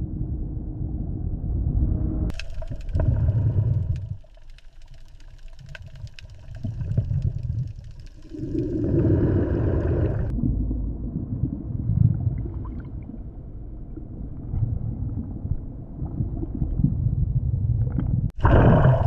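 Deep underwater ambience: a low rumble with water gurgling through it, swelling louder a couple of times and again near the end.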